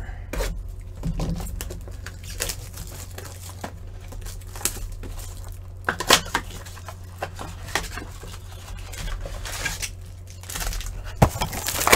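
Crinkling, rustling and tearing as a sealed 2020 Panini Mosaic football blaster box is opened by hand, with scattered clicks over a steady low hum.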